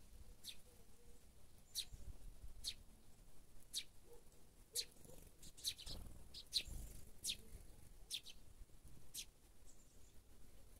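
Small garden songbirds giving short, high chirps, about a dozen of them spaced irregularly.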